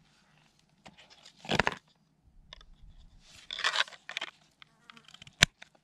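A small fixed-blade knife and its hard plastic sheath being handled, with a few short scraping rustles. About five seconds in comes one sharp click as the knife snaps into the sheath.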